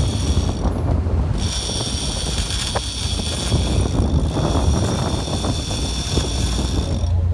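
Big-game trolling reel buzzing as a hooked wahoo pulls line off against the drag: a steady high whine that breaks off briefly about a second in and stops just before the end. The boat's engines drone low underneath.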